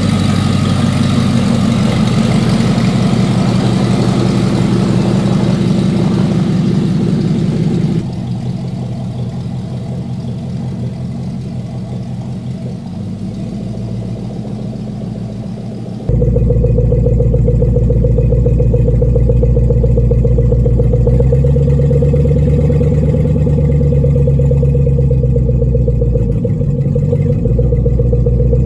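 Jeep Cherokee XJ's swapped-in 5.7 Hemi V8 driving off. It is loud close by at first, grows quieter after about eight seconds as it pulls away, then cuts suddenly to a steady engine drone heard inside the cab. The drone rises in pitch as the Jeep speeds up about three-quarters of the way through.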